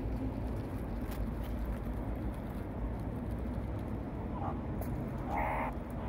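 Steady low rumble of city traffic, with a few faint clicks and one short, pitched call about half a second long near the end.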